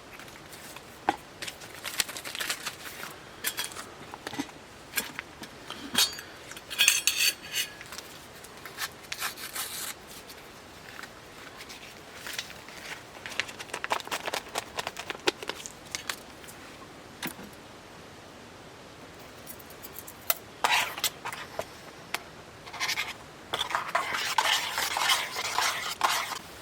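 Camping gear being handled and set down: scattered clinks, clatters and rattles of small hard metal items, with a jangling spell about seven seconds in and another near the end.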